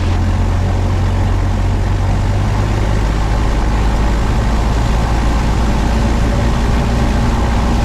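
Light single-engine plane's piston engine running steadily at about 1,800 RPM with the brakes held, during the pre-takeoff run-up just before the magneto check.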